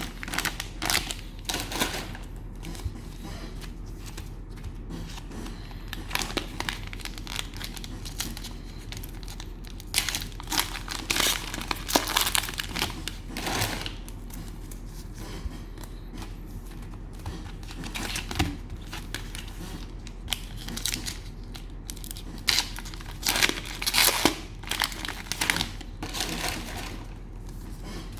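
Cellophane wrappers of trading-card packs crinkling in irregular bursts as the packs are handled and opened.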